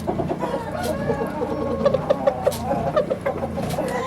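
Several chickens clucking over one another in a coop, with a few sharp clicks.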